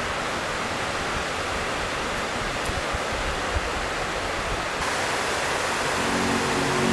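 Steady rush of water pouring down the walls of the 9/11 Memorial reflecting pools, with music coming in about a second before the end.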